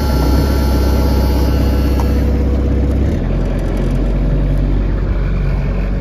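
Engine of a small loader running just after being started, a steady deep drone that settles a little lower about three seconds in.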